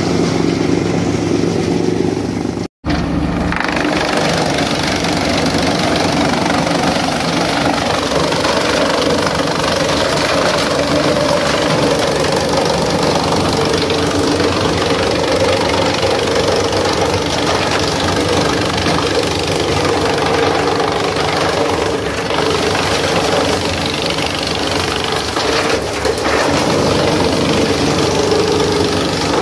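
Tractor-powered chaff cutter running under the tractor's steady engine, chopping tree branches and leafy green wood as they are fed into its mouth.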